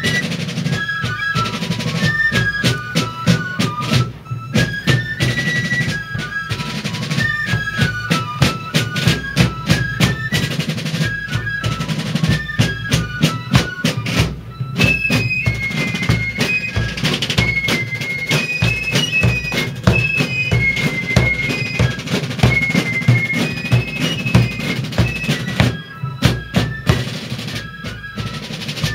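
Fifes and drums playing a march: a shrill, high fife melody over rapid snare rolls and bass drum beats. The tune moves up into a higher register about halfway through.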